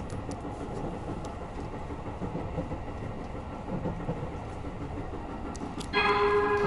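Train running with a steady low rumble and hiss and a few faint clicks. About six seconds in, a loud held tone with several overtones starts suddenly and holds.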